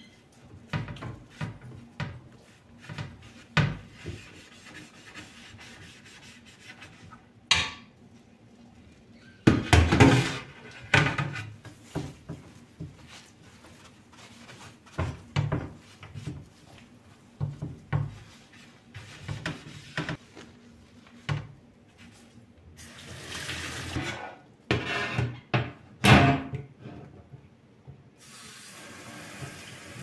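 Sponge scrubbing a soapy glass shelf on a stainless-steel sink drainboard: irregular rubbing strokes with a few louder bumps of glass against steel. Near the end the tap is turned on and water runs steadily into the sink.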